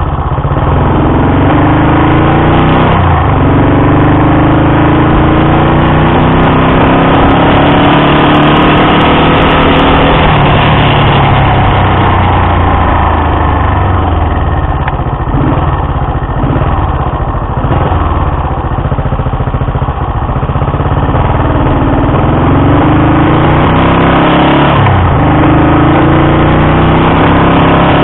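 Old Honda Dream CL250 parallel-twin motorcycle engine pulling away and accelerating. The engine note rises, drops at a gear change about three seconds in, then climbs again. After a steadier stretch of riding, it rises once more with another gear change near the end.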